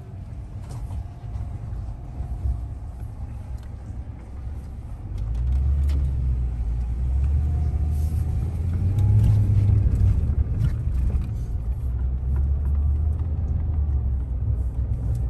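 Car driving slowly over a dirt and gravel road, heard from inside the car: a low rumble of engine and tyres that grows louder about five seconds in, with scattered small clicks.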